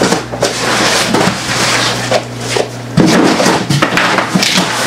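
Rustling and clattering of objects being handled at close range, with a sharp knock about three seconds in.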